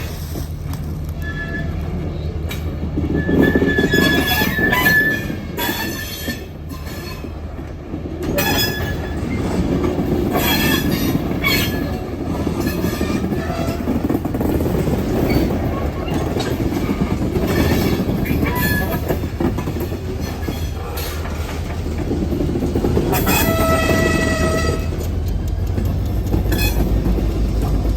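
Freight train running past: a diesel locomotive's low steady drone under the rattle and clank of rail cars, with metal wheels squealing on the rails in repeated bursts.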